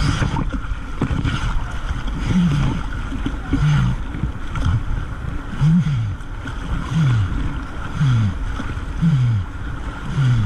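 Brown floodwater rushing and splashing around a kayak running river rapids at high water, heard from a camera low on the deck with water washing over it. A low sound that drops in pitch repeats about once a second throughout.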